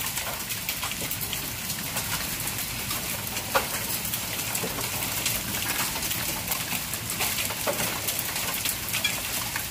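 Rain mixed with hail falling on a concrete patio: a steady hiss with many small sharp ticks of stones and drops striking, and a few louder ticks, the loudest about three and a half seconds in.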